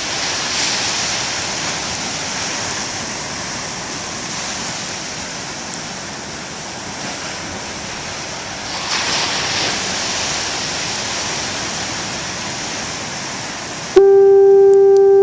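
Big storm-driven surf crashing and rushing in a steady hiss, swelling at the start and again about nine seconds in. About a second before the end a foghorn cuts in with one loud, steady low note, the loudest sound here.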